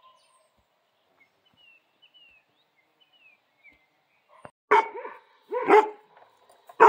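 A dog barking three times, about a second apart, in the second half, with faint bird chirps before the barks.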